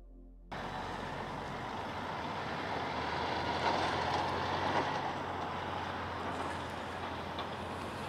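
Steady outdoor background noise in an open field, starting abruptly about half a second in and holding even, with no distinct event.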